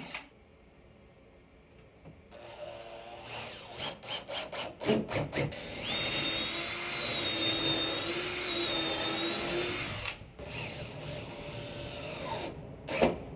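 Cordless drill boring a pilot hole into a wooden handrail, its motor running at a steady whine for about four seconds before stopping abruptly. Before that come a run of short sharp taps, and near the end a brief burst.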